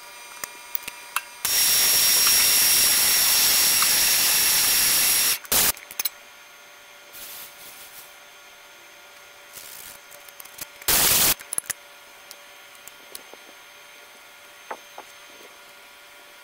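Compressed-air blow gun blasting coolant and chips off a workpiece in a milling-machine vise: one long hissing blast of about four seconds, then several short puffs, the last loud one about eleven seconds in. A steady machine hum runs underneath.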